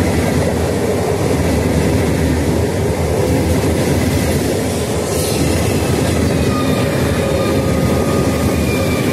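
Frecciargento high-speed train passing along the platform: a steady, loud rumble of wheels and running gear on the rails, with faint high whines drifting slowly in pitch above it.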